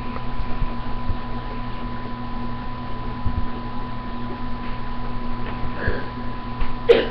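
Steady electrical hum and hiss with no clear activity, broken near the end by one sharp click.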